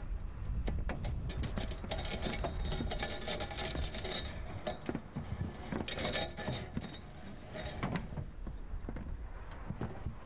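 Clinking and tapping of metal lanyard hardware and boots on a profiled metal roof, thickest between about two and seven seconds in, over a low rumble of wind on the microphone.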